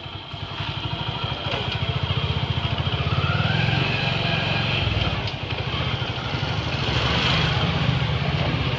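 Motorcycle engine pulling away and running as the bike rides along, heard close from the bike-mounted rig. It grows louder over the first couple of seconds and dips briefly about five seconds in.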